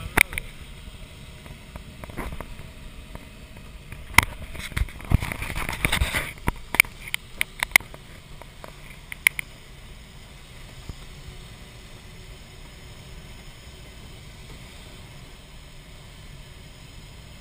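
Steady rush of air over a glider's canopy heard inside the cockpit, with a run of sharp clicks and knocks about four to eight seconds in.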